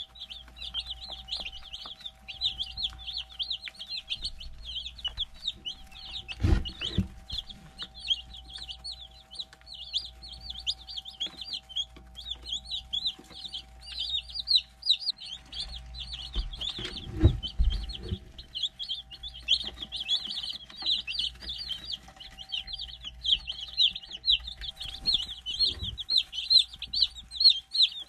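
A brood of day-old meat-bird chicks peeping constantly, many short high peeps overlapping at once. Two dull low thumps come about six seconds in and again around seventeen seconds, over a faint steady hum.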